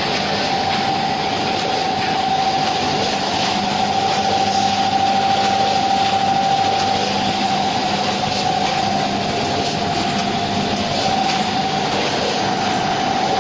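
Vertical form-fill-seal packing machine with a multi-head weigher running in production: a steady mechanical hum carrying a constant whine, with faint ticks and clicks from the mechanism.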